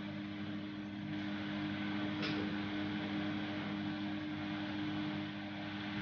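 Beko 8 kg washing machine's drain pump humming steadily on the spin/drain program without turning normally. This is the E17 fault, which the narrator puts down to excess detergent foam or something stuck in the pump filter.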